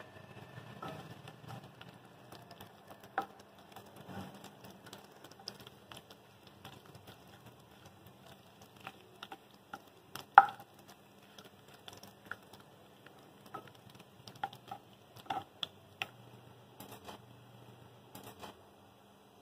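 Whole spices (cumin seeds, cloves, bay leaves, cinnamon, black cardamom) crackling and popping in hot oil in a pan: the tadka, or tempering, stage of cooking. Scattered pops keep up throughout, with a sharp knock about ten seconds in.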